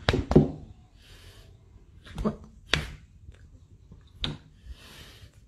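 A cat hissing briefly twice, between a few sharp knocks and thumps as it swipes about.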